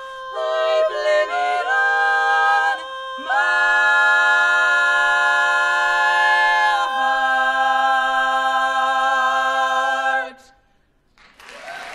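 Women's barbershop quartet singing a cappella in four-part harmony, closing the song on held chords. One voice holds a steady note while the others move through several chord changes. The long final chord cuts off about ten seconds in, and after a moment of silence audience applause starts near the end.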